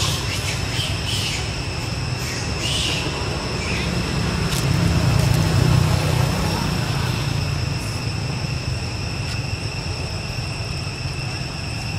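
Outdoor background: a low rumble that swells from about four seconds in and eases after seven, under a steady high-pitched whine held at several pitches. A few short rustling scrapes come in the first three seconds.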